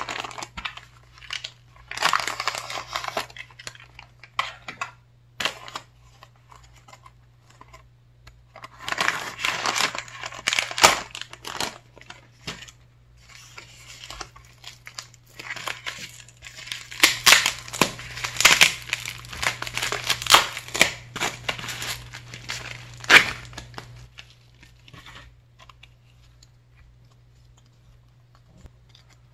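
Plastic mailers being handled and torn open: a grey poly mailer crinkling, then a pink bubble mailer's adhesive flap being peeled and pulled open, in irregular bursts of crinkling and tearing with a few sharp crackles. The handling goes quiet about three quarters of the way through.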